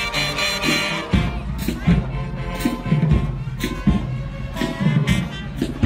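High school marching band playing: brass and sousaphones holding chords over drum-line hits.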